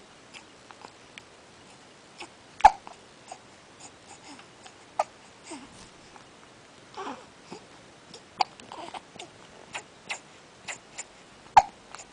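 Baby hiccupping: short sharp hiccups, the loudest about two and a half seconds in and near the end, with fainter clicks between. A brief coo with falling pitch comes about seven seconds in.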